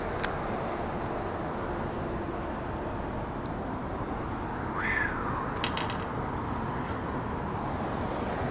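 Steady outdoor background noise, with a short high chirp about five seconds in and a quick run of small clicks just after it.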